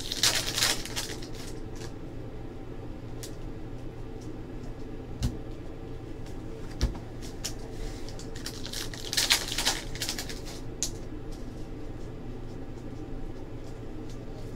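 Basketball trading cards and packs being handled, with two short bursts of crisp rustling, one at the start and one about nine seconds in, and a few light clicks over a steady low hum.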